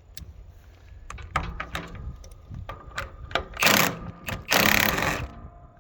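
Tools working a bolt into wood: a run of sharp metal clicks, then two loud rattling bursts of under a second each.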